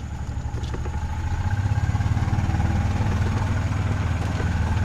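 Golf cart's small engine running as the cart drives along, growing louder over the first two seconds, then steady.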